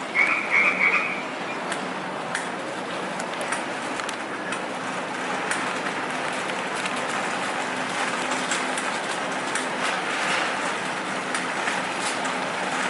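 A brief high chirping sound just after the start, then a continuous rolling rattle and clatter of many small clicks over a steady low hum, like a shopping cart being pushed along a store aisle.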